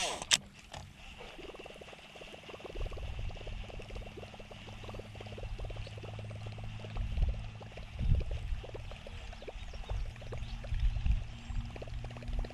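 A sharp click just after the start, then a Googan Squad Revolver topwater plopper bait being retrieved across the water. Its spinning tail makes a quick, continuous plopping and gurgling, with the baitcasting reel winding underneath as a steady low hum.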